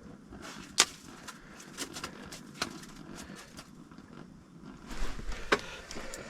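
A few sharp, isolated clicks over faint handling noise, the first about a second in the loudest.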